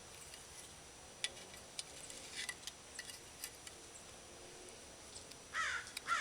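Scattered light clicks and taps as a bent window-track piece is handled and bent back into a truck door, then a crow cawing twice near the end, the loudest sound.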